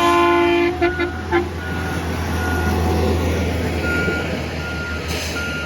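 Railroad maintenance-of-way track machines passing: a multi-note horn blast cuts off about half a second in, followed by two short toots. A diesel engine then rumbles past, louder toward the middle, while a backup alarm beeps repeatedly at a single pitch.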